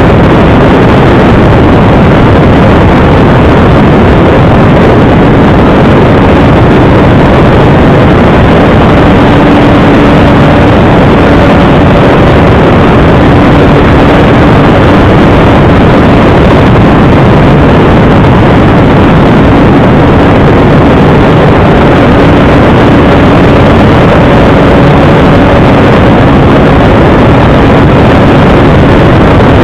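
Radio-controlled model Airvan airplane's motor and propeller, heard very loud and close from a camera mounted on the plane, with heavy rushing air noise. A steady hum runs under the noise, its pitch rising slightly now and then as the throttle changes.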